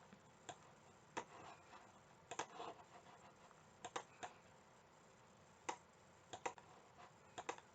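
Faint, irregular computer mouse clicks, about a dozen, some in quick pairs and a quick run of three near the end, over near silence.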